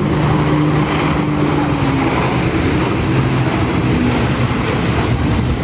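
Personal watercraft engine running steadily under load, driving the water jet of a flyboard, with a steady humming pitch over a wash of noise.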